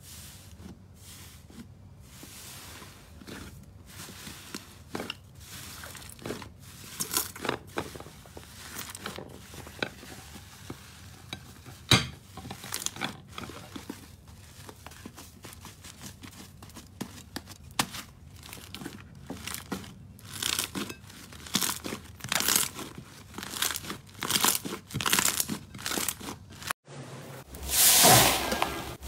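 Thick yellow slime stretched, pulled and torn by hand, giving sticky crackling and popping. Near the end a hand pressing into crunchy slime topped with pink and yellow pieces gives louder crunching.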